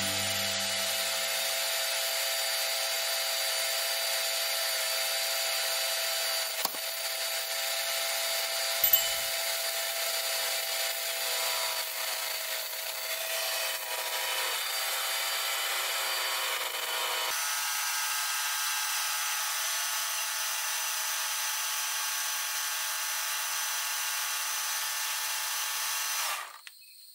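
Kärcher K2 Compact pressure washer running, its electric motor and pump giving a steady whine with the hiss of the spray jet, drawing its water by suction from a bucket rather than a tap. The whine changes pitch about two-thirds of the way in and cuts off suddenly near the end.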